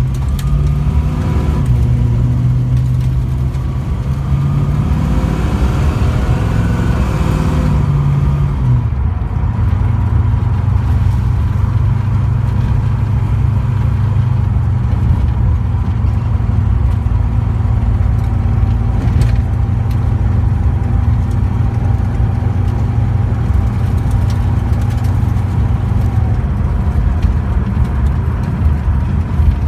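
Freshly rebuilt Mopar 340 small-block V8 running on a slow test drive. Its note shifts up and down over the first several seconds, then holds steady.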